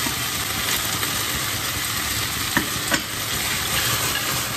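Chicken, cucumber and almonds sizzling in hot oil as they are stir-fried in a wok and tossed with chopsticks. Twice, a little past the middle, the chopsticks click against the pan.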